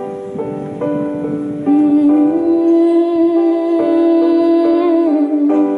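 Live worship song between sung lines: accompaniment chords with one long held note, hummed or sung without words, that wavers near the end.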